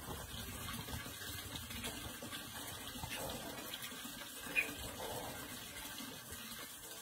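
Water running and splashing steadily, with one short sharp tick about four and a half seconds in.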